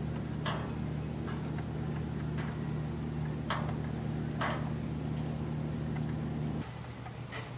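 Steady low drone of a boat's engine, cutting off abruptly near the end, with a few short sharp clicks over it.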